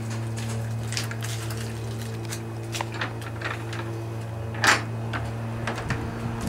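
Clicks and rattles of a black metal latch on a wooden fence gate being worked by hand, with one sharper click about four and a half seconds in. A steady low hum runs underneath.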